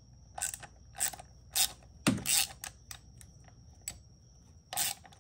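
Hand ratchet clicking in short strokes as a T30 Torx bolt set with thread-locker is worked loose, a few strokes about half a second apart with a pause partway through.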